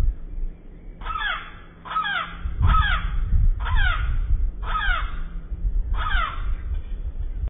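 A crow cawing six times, about once a second, each call falling in pitch, over a low rumble.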